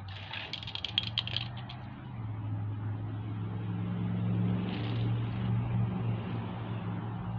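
A rapid clatter of small sharp clicks for about a second near the start, a Hot Wheels die-cast car rattling on the plastic track and concrete. Then the low steady hum of a passing motor vehicle builds for a few seconds and eases off near the end.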